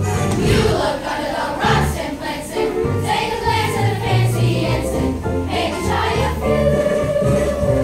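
A group of children singing a song together to musical accompaniment with a bass line.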